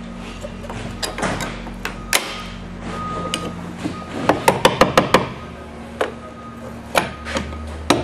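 Sharp metal knocks and taps of a steel pry bar working under a spa jet's chrome face to lever the fitting out of the acrylic shell, with a quick run of taps about four to five seconds in, over a steady low hum.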